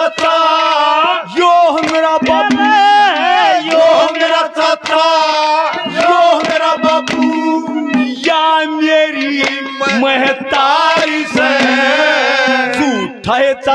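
Haryanvi ragni: a man singing long, held melodic lines over sustained instrumental notes and rapid hand-drum strokes.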